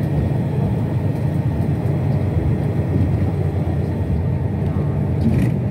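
Airport transfer bus running, a steady low rumble heard from inside the passenger cabin, with a short click near the end.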